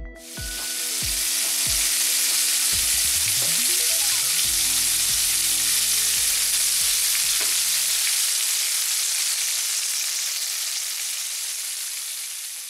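Battered fish pieces frying in hot oil in a frying pan: a steady, loud sizzle that fades in over the first couple of seconds and tapers off near the end. Background music plays underneath until about two-thirds through.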